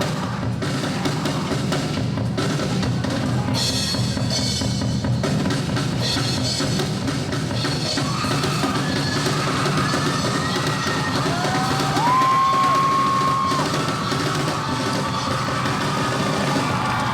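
Live drum kit solo, bass drum, snare and rolls played continuously. From about halfway through, sliding high notes that bend up, hold and fall come in over the drums, loudest a little past the middle.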